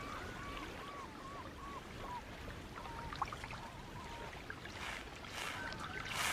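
Gentle water trickling and lapping on a rocky shore, with a run of short, rising-and-falling animal calls in the first two seconds and a few more near the middle. Two brief splashes come near the end.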